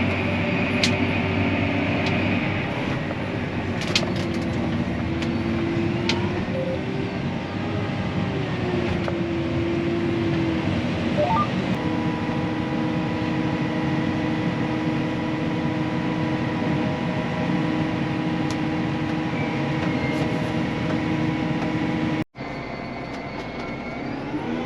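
Harvest machinery's engine running steadily, heard from inside the cab, with its pitch shifting a little now and then and a few faint clicks. The sound cuts out briefly about 22 seconds in and comes back quieter.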